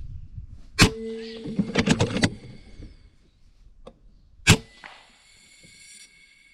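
Two shots from an FX PCP air rifle, a sharp crack about a second in and a louder one a little over four seconds in, each followed by a brief ring. Between them come a few quick clicks as the rifle's action is cycled for the next pellet.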